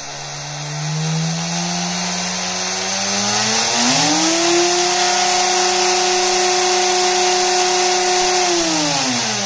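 Small high-turn brushed crawler motor spinning a wheel on a test bench, its whine rising in pitch as the throttle is opened. It holds steady at full speed, about 11,800 RPM on a 2S battery, for around four seconds, then falls in pitch near the end as it spins down.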